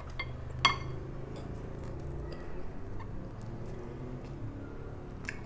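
A spoon clinking briefly against a ceramic plate while eating, a few short sharp clinks with the loudest about half a second in, over a low steady hum.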